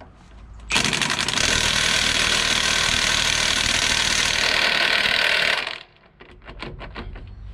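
Large impact wrench hammering steadily for about five seconds on a seized Budd-wheel nut of a heavy truck, then stopping abruptly: the nut does not break loose. A few light clicks follow.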